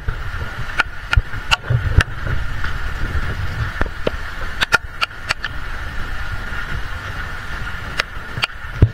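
Rain on a phone filming in the open: a steady low rumble of wind and rain on the microphone, broken by irregular sharp taps of drops hitting the phone. A steady high hum runs underneath.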